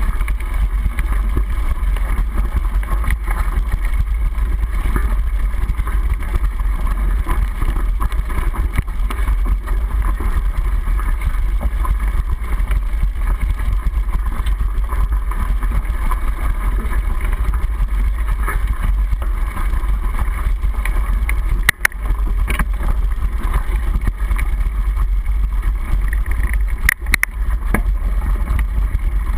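Steady low rumble and wind noise of a mountain bike riding a dirt forest trail, heard through a handlebar-mounted camera's waterproof housing. A few sharp knocks from the bike come about three quarters of the way in and again near the end.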